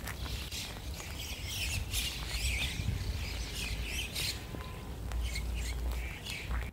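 Small songbirds chirping and calling in quick, overlapping short notes, over a steady low rumble.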